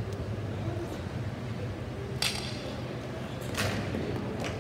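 Two sharp clacks of ball hockey play, stick and ball striking, about two seconds in and again about a second and a half later. The first has a brief metallic ring. A steady low rumble runs underneath.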